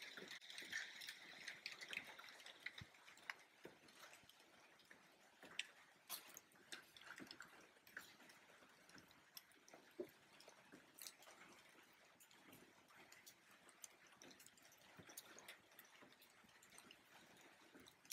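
Near silence: faint room tone with scattered small clicks and ticks.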